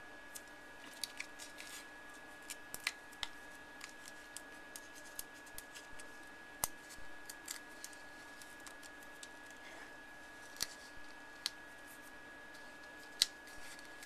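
Sparse, irregular light snips and clicks of small scissors and paper being handled, as tiny pieces of foam adhesive are trimmed and pressed onto a cardstock panel, over a faint steady hum.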